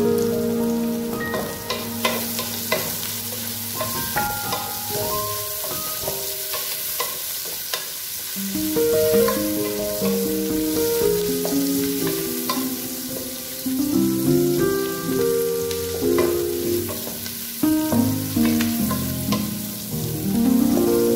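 Sliced onion, ginger and garlic sizzling in hot oil in a nonstick pan, stirred with a wooden spatula that clicks and scrapes against the pan, with background music over it.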